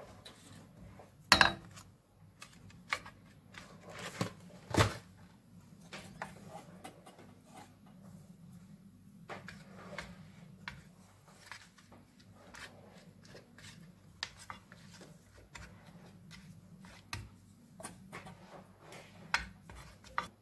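Wooden spoon scraping and knocking against a metal baking dish and pots as sauce is spread and pasta sheets laid in: scattered clicks and knocks over a faint low hum, the loudest knocks about a second and a half in and about five seconds in.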